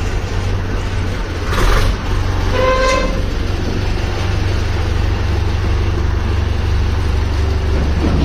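Tractor diesel engine running at a steady idle, a low even rumble. A short hiss comes about one and a half seconds in, and a brief toot about two and a half seconds in.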